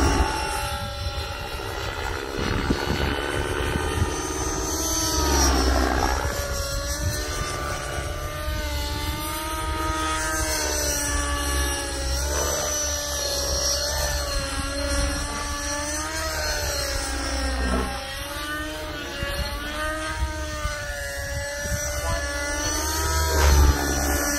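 Nitro RC helicopter (Align T-REX 600N with an O.S. .55 two-stroke glow engine and tuned pipe) in flight, its engine and rotor whine rising and falling in pitch as it manoeuvres and passes, with a sharp drop and recovery about eighteen seconds in.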